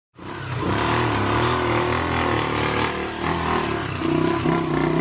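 A motor vehicle engine running, its pitch shifting a little.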